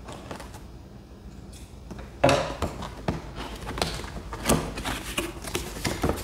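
Cardboard box and its packaging being opened and handled: faint scattered clicks at first, then a sudden knock about two seconds in followed by irregular rustling, scraping and knocks.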